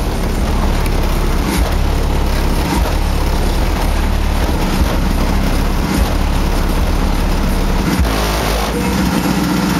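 Very loud, sustained deep bass from four 12-inch car subwoofers on a 2,000-watt system, heard from beside the car, with the car's body and doors buzzing and rattling under it.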